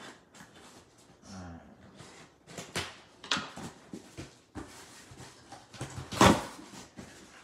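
Scissors cutting packing tape on a small cardboard box, then the box being lifted and turned in the hands: a run of clicks, taps and cardboard rustles, with the loudest sharp knock about six seconds in.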